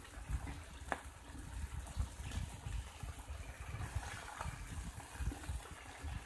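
Tilapia and bangus fish fillets sizzling on a hot grill pan as they are turned and laid down with metal tongs, with one light click about a second in.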